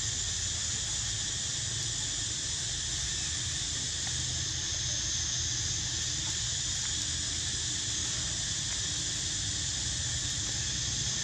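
Steady high-pitched insect chorus droning without a break, over a low rumble.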